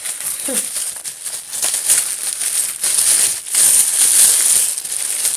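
White wrapping paper crinkling and rustling as it is pulled open by hand around a small gift, growing louder in the second half.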